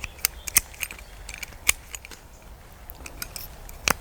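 A handful of sharp, irregular clicks from a hand ratchet lopper being handled and set on a branch, the loudest near the end.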